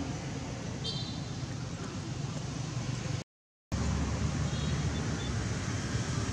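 Steady outdoor background rush with no clear single source. A short high chirp comes about a second in. Just after three seconds the sound drops out completely for about half a second at an edit, then the rush resumes.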